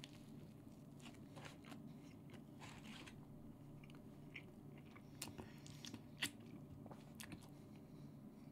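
Faint chewing of a mouthful of cheeseburger: soft, irregular mouth clicks over a low room hum, the clearest about six seconds in.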